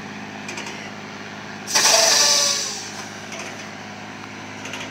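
A large engine running steadily with a low, even hum. About two seconds in, a loud hiss starts suddenly and fades away within about a second.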